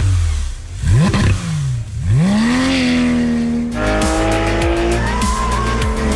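Porsche 911 GT3 RS flat-six engine revving in quick blips up and down, then climbing and holding a steady high note. About four seconds in, the sound changes abruptly to a steadier engine note that climbs slowly under load.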